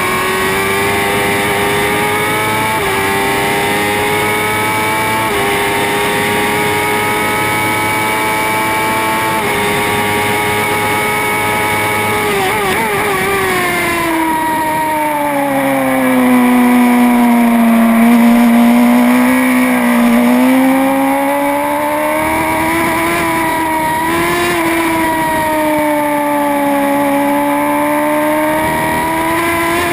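Racing motorcycle engine heard on board at high revs. Its note climbs through the gears with a short dip at each upshift, then falls steeply about halfway through as the bike brakes and shifts down for a slow corner. It stays low for a few seconds, then pulls back up through the revs near the end.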